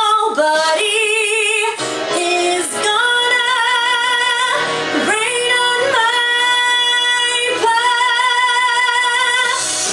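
A woman belting a Broadway show tune, holding long notes with wide vibrato; near the end she sustains one note for about two seconds.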